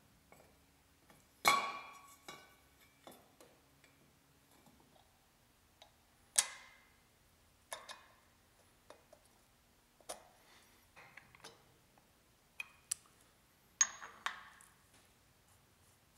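Small metal parts clinking and ticking as a drill press's pulley bracket is reassembled by hand: a ball bearing set into its seat and the bearing-cap screws driven in with a screwdriver. Three sharp, ringing clinks stand out, near the start, midway and near the end, with lighter ticks between.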